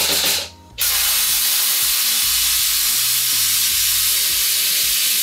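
Hypertherm Powermax 65 SYNC plasma torch cutting 10 mm aluminium: a rapid rattling buzz stops about half a second in, and after a brief gap the plasma arc starts with a loud, steady hiss.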